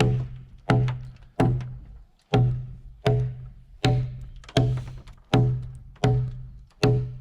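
Repeated hard strikes of a hand tool into a timber log, about ten of them at a slightly uneven, working pace of a little more than one a second, each ringing with a low hollow tone from the wood.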